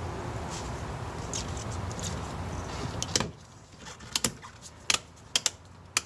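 Sharp plastic clicks and knocks, five or six in the second half, as a golf cart's forward/reverse rocker switch is pressed down into its housing. A steady background hum runs under the first half and stops suddenly about three seconds in.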